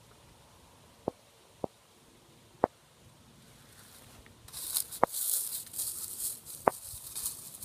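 Five short, sharp clicks spaced irregularly, the loudest about two and a half seconds in. From a little past halfway, a gusty, rustling hiss sets in.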